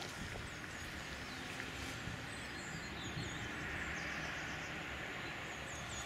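Outdoor lakeside ambience: small birds chirping faintly over a steady background hiss and low rumble.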